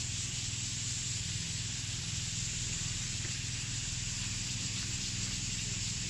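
Steady outdoor hiss with a low, even hum beneath it, unchanging throughout.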